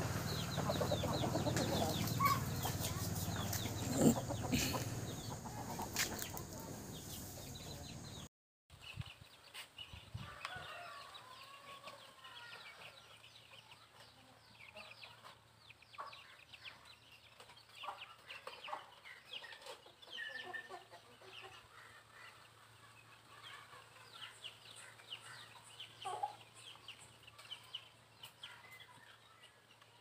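Aseel chickens clucking, over a steady low hum. After a brief break about eight seconds in, the sound is fainter, with scattered short clucks and chirps.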